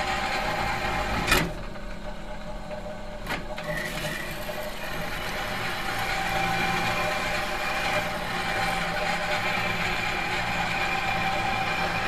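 Industrial metalworking machine running with a steady mechanical hum. A sharp clack about a second in is followed by quieter running, a second click comes about two seconds later, and the running gradually grows louder again.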